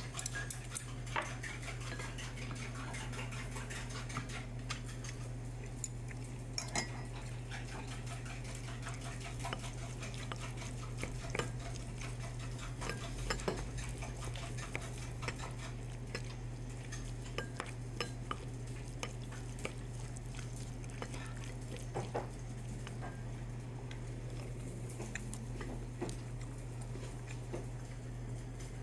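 Wooden spoon stirring and scooping rice in a ceramic bowl: scattered light knocks and scrapes against the bowl, over a steady low hum.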